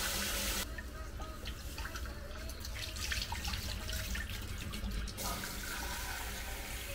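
Kitchen tap running into a metal rice-cooker pot and stopping about half a second in, then splashing as rice is rinsed and its water poured off into the steel sink. About five seconds in, the tap runs again over a small cup.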